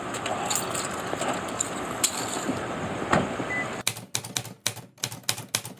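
Steady background noise with a few faint ticks. About four seconds in it gives way to a rapid series of sharp clicks, roughly five a second, for about two seconds.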